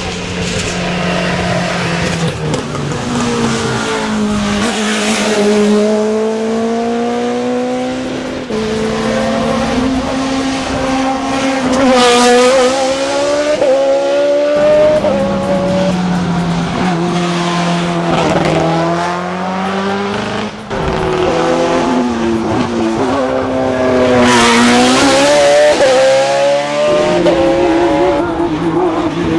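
Hill-climb race car engine at full throttle, its pitch climbing through the gears and dropping at each shift, getting louder as it passes twice.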